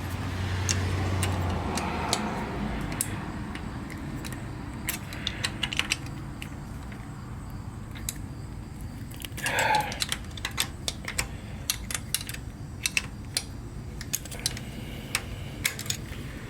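Irregular small metal clicks and clinks of hand tools and carburetor parts being handled while the carbs are worked loose from a motorcycle's intake, with a denser rattle about ten seconds in.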